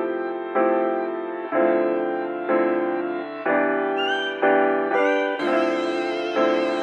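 Slow instrumental background music: sustained chords that change about once a second.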